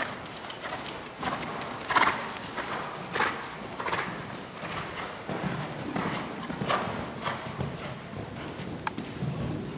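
Hoofbeats of a horse cantering on sand footing, a steady rhythmic beat of about one stride every two-thirds of a second.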